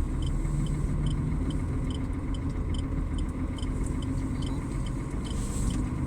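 Turn-signal indicator clicking steadily, about two to three clicks a second, over the steady low rumble of the vehicle's engine and road noise inside the cab.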